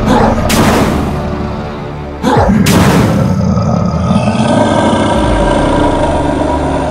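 Background music with two sudden boom sound effects, one about half a second in and another about two and a half seconds in.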